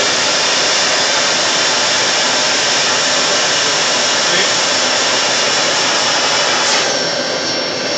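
Vacuum sack lifter's suction unit running with a loud, steady rush of air while its suction pad holds a sack of carrots; the hiss shifts slightly near the end.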